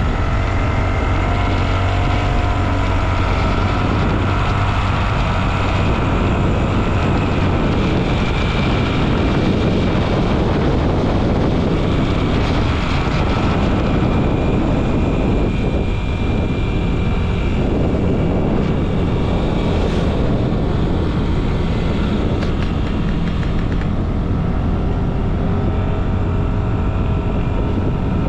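Motorcycle engine running at cruising speed, with steady wind rush over the microphone.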